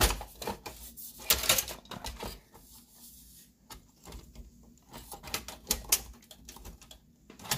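Irregular clicks and knocks of a GeForce GTX 1660 Ti graphics card and its metal bracket being handled and lined up with the PCIe slot inside a desktop computer case, the loudest right at the start and about a second and a half in.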